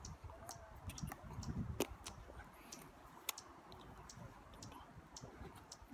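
Faint, irregular sharp clicks, a few every second, over a low rumble.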